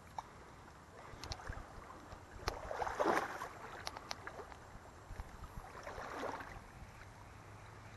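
A person wading through a shallow creek: water swishes around the legs in two swells, about three and six seconds in, with scattered light clicks.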